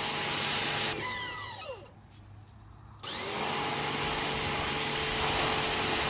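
Pressure washer running and spraying with a steady hiss and motor whine; about a second in it shuts off and the motor's pitch falls as it winds down, then it starts again abruptly about three seconds in and runs steadily.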